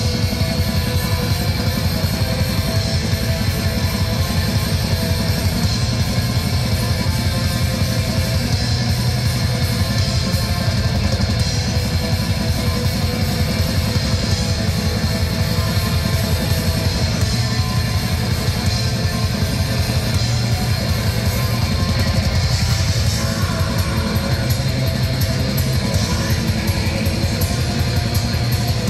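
Black metal band playing live: distorted electric guitars over rapid, unbroken drumming, loud and steady.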